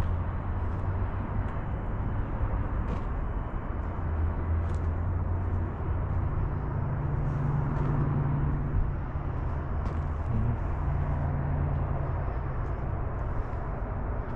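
Kenworth W900 semi truck's diesel engine idling: a steady low rumble whose tone shifts about six and ten seconds in.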